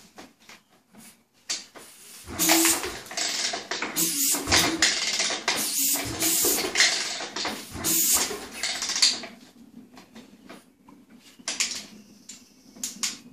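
Honda CR500 single-cylinder two-stroke dirt bike engine being kicked over about four times in quick succession, starting a couple of seconds in, each kick a noisy surge of a second or two. It does not catch and run: it is being kicked with the choke off and no throttle.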